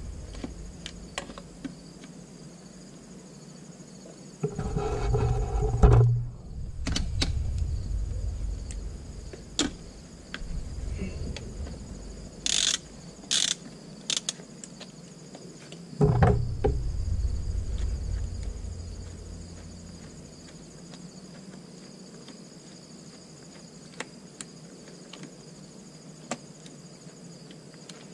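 Hand ratchet turning a T30 Torx bit to loosen screws on a transmission case, with scattered small clicks and knocks of the tool against metal. Two short sharp louder sounds come a little before halfway. A low rumble comes and goes twice, once about a fifth of the way in and again just past the middle.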